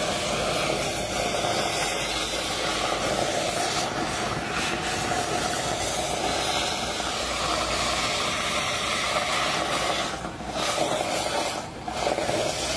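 Cutting torch hissing steadily as it cuts through the steel of an excavator bucket arm. The hiss dips briefly twice near the end.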